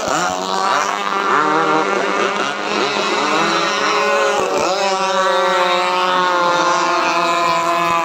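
Several radio-controlled racing powerboats running flat out on modified two-stroke chainsaw engines, their high-pitched buzzing overlapping. The pitch rises and falls as the boats pass and turn, with one boat sweeping close by about halfway through.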